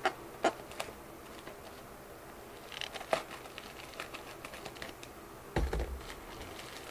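Scissors snipping and the plastic of a sealed mailer package crackling as it is cut and pulled open, in scattered sharp clicks, with a dull thump a little after five seconds in.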